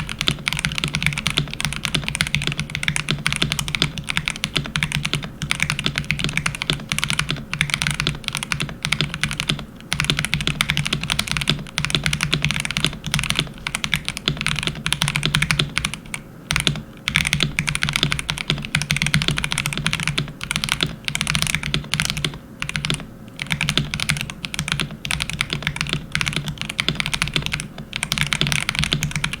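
Fast continuous typing on a custom mechanical keyboard with Zepsody Bluebonnet linear switches, a polycarbonate plate and PBT keycaps: rapid, fairly high-pitched clacky keystrokes with short pauses between bursts.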